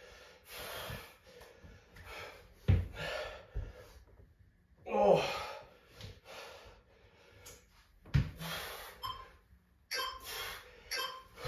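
A man breathing hard during back lunges with a twist, with one short voiced exhale about five seconds in. Dull thuds sound twice, a few seconds apart, as his feet step back onto the floor mat.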